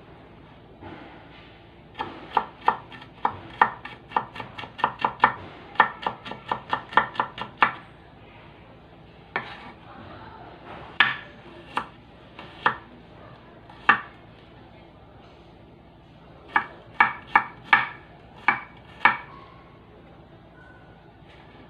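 Chef's knife chopping on a wooden cutting board: a quick run of sharp knocks, about four a second, starting about two seconds in, then scattered single strokes, and another short run near the end.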